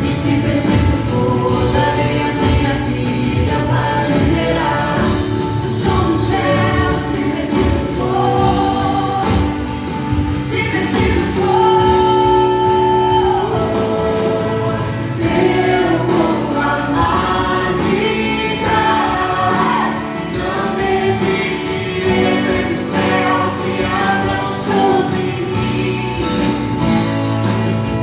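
Gospel worship song with choir singing over a full band accompaniment.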